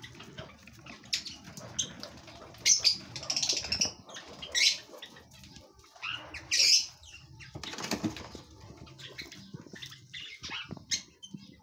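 White doves stirring on a straw nest: dry straw rustling and wings fluttering in a series of short, scratchy bursts.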